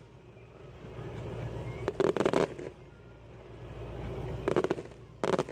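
Fireworks going off: three clusters of sharp, rapid pops and crackles, about two seconds in, about four and a half seconds in, and just before the end. Before each cluster a rushing noise swells for about a second.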